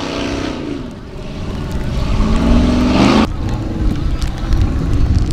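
Off-road racing buggy's engine revving hard under full throttle on the climb: its pitch sinks through the first half second, then rises again and breaks off suddenly about three seconds in, leaving a low rumble.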